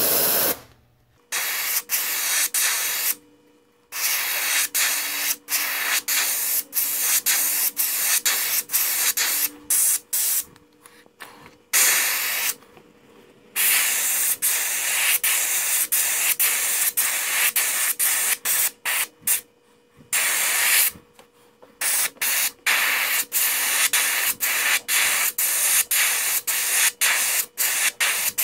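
Gravity-feed airbrush spraying paint: a steady hiss of air that stops and starts many times, with a few pauses of about a second.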